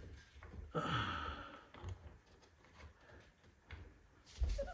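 A person's long sighing exhale about a second in, then a low thud near the end as wooden furniture parts are pushed together.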